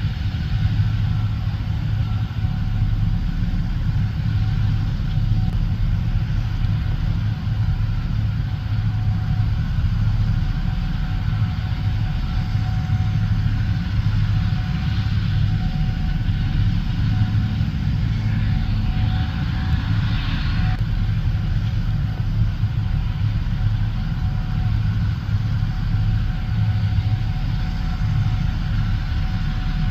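Gleaner S77 combine harvester running steadily while harvesting corn, a deep engine hum with a faint steady whine above it. About two-thirds of the way through, a rush of hissing noise swells for a few seconds and then stops.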